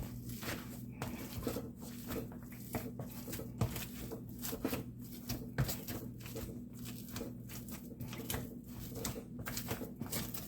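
Hand potato masher working hot boiled potatoes and butter in a pot: irregular soft squishing strokes and knocks, about one or two a second, over a steady low hum.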